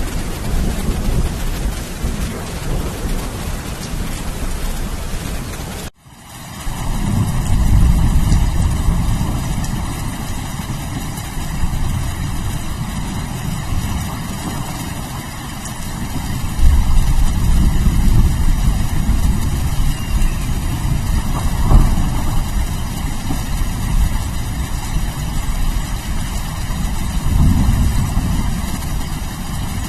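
Steady rain hiss, broken by a brief cut about six seconds in. A deep, continuous thunder rumble then takes over under the rain, swelling and easing several times.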